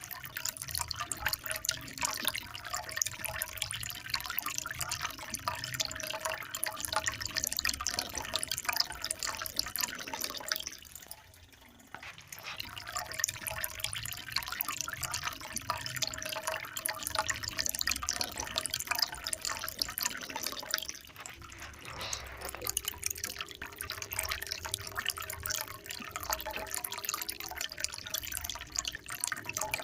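Water trickling and splashing, a continuous patter of many small drips and splashes. It briefly thins out about eleven seconds in and again just after twenty seconds.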